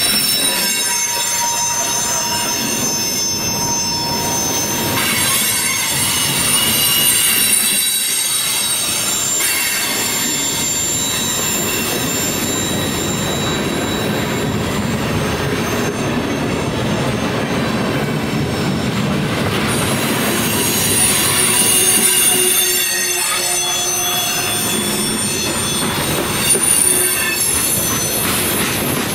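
Freight train of tank cars rolling past close by: a steady rumble and clatter of wheels on rail, with steel wheels squealing in high, shifting whines that swell and fade.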